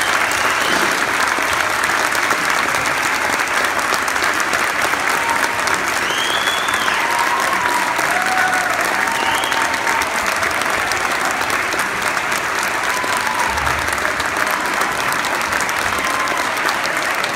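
Audience applauding steadily, with a few voices whooping and cheering above the clapping now and then.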